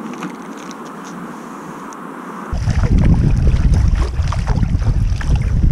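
Wind buffeting the action camera's microphone while paddling a kayak, with water splashing from the paddle blade; it begins abruptly about two and a half seconds in. Before that, a fainter steady outdoor hum with a few light clicks.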